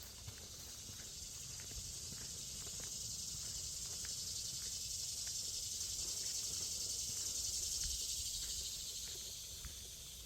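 A high insect buzz that swells over several seconds and fades near the end, over a hiker's footsteps on the trail.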